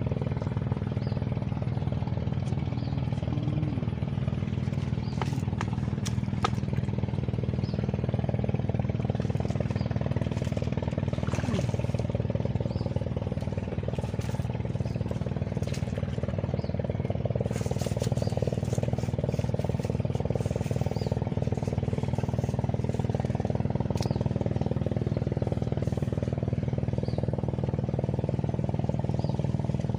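A small engine running steadily at one unchanging pitch, with scattered light clicks over it.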